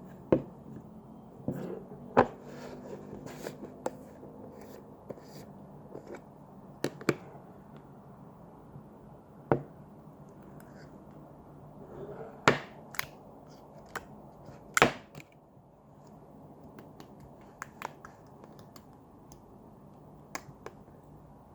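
Clear slime made with soothing gel being pressed and worked by hand, giving irregular sharp pops and clicks, a few much louder than the rest.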